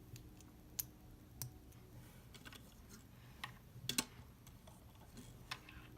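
Plastic Lego bricks clicking as they are handled and fitted together: scattered sharp clicks, the loudest a quick pair about four seconds in.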